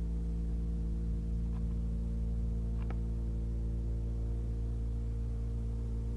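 Steady electrical hum with a low rumble beneath it, and two faint clicks about one and a half and three seconds in.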